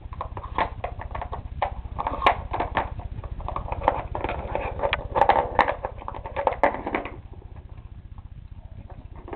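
Cocker spaniel working the pieces of a Dog Magic treat puzzle: a quick, irregular run of knocks, clicks and clatter. It thins out about seven seconds in.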